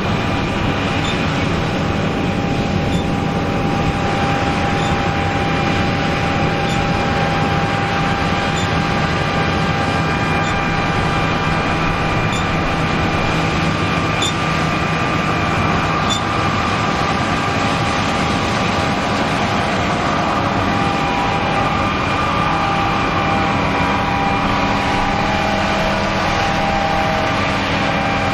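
Combine harvester running steadily at harvest: a constant mechanical drone with several steady whining tones that shift a little about two-thirds of the way through.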